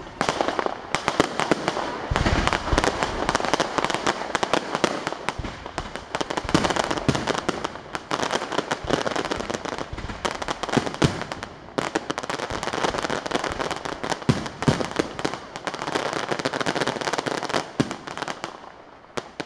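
Fireworks display: a dense, nearly unbroken barrage of bangs and crackling from aerial shells bursting overhead, with a deeper boom about two seconds in.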